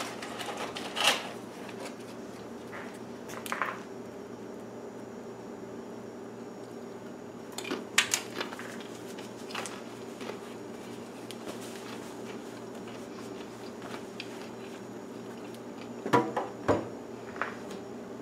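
A few short knocks and clinks of a spoon and stainless steel bowl being handled on a kitchen counter, scattered through a steady low hum.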